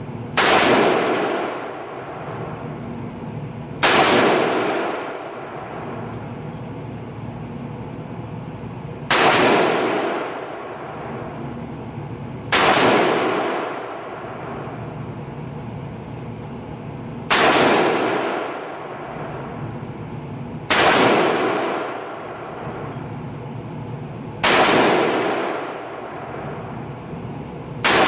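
Smith & Wesson M&P15 Sport II AR-15 rifle firing 5.56/.223 rounds in slow, single semi-automatic shots. There are eight shots, about four seconds apart, and each shot echoes and fades over a second or so.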